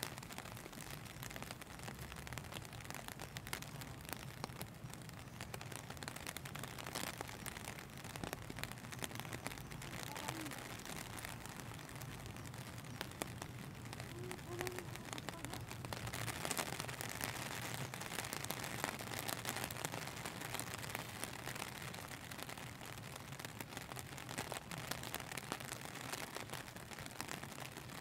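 Steady rain falling, a dense patter of many small drop ticks, a little heavier about halfway through.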